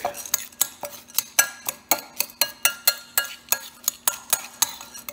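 A spoon stirring oiled, salted pumpkin seeds in a glass bowl: quick repeated clinks and scrapes of the spoon on the glass, about four a second.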